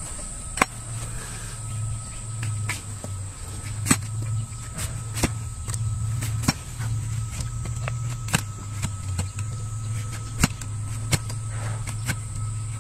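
Irregular sharp metallic knocks, roughly one or two a second, as a broad blade is struck against a horseshoe and hoof on a wooden stool. A steady low hum and a thin high whine run underneath.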